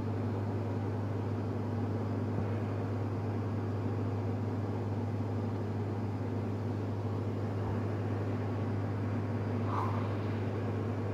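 Steady low hum with an even hiss over it, unchanging throughout: constant room background noise from a running machine such as a fan.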